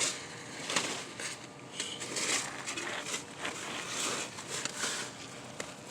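Old roofing being handled and pulled at: irregular scraping, crackling and small knocks of dry cap sheet and paper underlayment.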